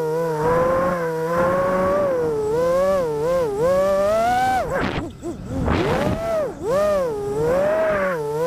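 FPV quadcopter's brushless motors whining, heard from the drone's own camera. The pitch swings up and down with the throttle, and about five seconds in it drops sharply and climbs back as the throttle is chopped and punched again.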